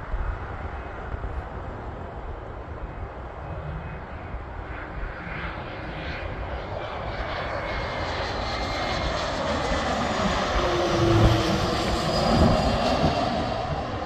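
Twin-engine business jet on final approach with gear down, its jet engines growing steadily louder as it comes in low and passes overhead, with a faint whine that falls slightly in pitch; loudest near the end.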